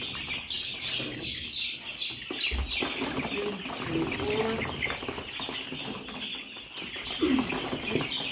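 A flock of chickens peeping and chirping continuously, many overlapping short high calls, with a few lower calls in the middle and a falling call near the end.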